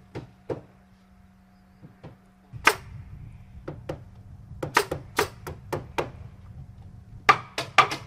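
Hammer blows on wooden roof framing: irregular sharp knocks, with one loud blow a few seconds in and quick runs of several strikes in the middle and near the end. A steady low hum runs underneath.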